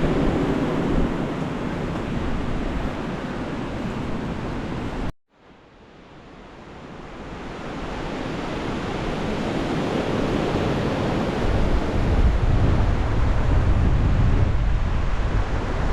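Gale-force storm wind rushing and buffeting the microphone as a steady noise. It cuts out abruptly about five seconds in, then fades back in gradually and is loud again near the end.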